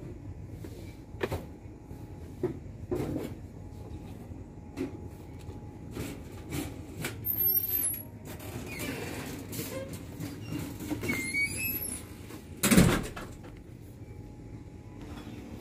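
Supermarket ambience: a low steady hum with scattered clicks and knocks, a few short high squeaks, and one loud brief knock near the end.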